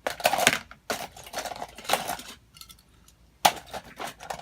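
Small plastic toy pieces, LEGO bricks and toy cars, clicking and clattering in several short bursts of handling, the loudest about three and a half seconds in.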